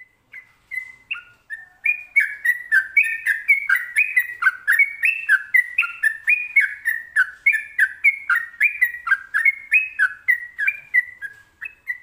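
Yellow-vented bulbul singing a fast, continuous run of short whistled notes that slide up and down, about three notes a second, cutting off near the end.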